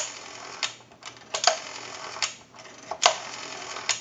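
Rotary dial of an Automatic Electric Model 21 telephone being pulled round and released for successive digits, with sharp mechanical clicks spaced well under a second apart. The dial has a smooth return after being repaired.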